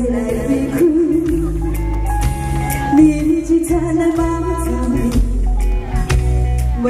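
A woman singing a Taiwanese Hokkien pop song live into a microphone over backing music with bass and drums, amplified through stage speakers, with vibrato on the held notes.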